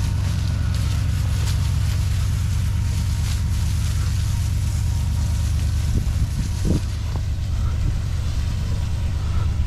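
Pickup truck engine running steadily under load as it tows a Volkswagen Beetle on a chain. The Beetle's seized rear brake keeps one rear wheel locked, so it slides over the ground instead of turning. A couple of small knocks come about six seconds in.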